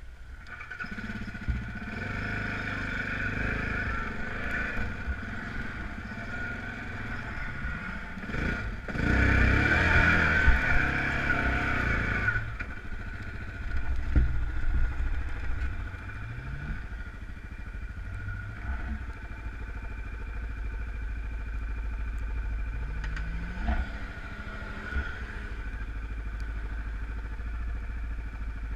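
Off-road vehicle engines running and revving. There is a loud stretch of hard acceleration about nine seconds in, and the revs rise several more times later on.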